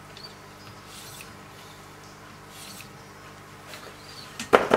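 Wicked Edge guided-sharpener stone rubbing along the edge of a clamped Hogue EX-03 knife blade in soft strokes about once a second. Near the end there is a short burst of loud knocks, a clatter.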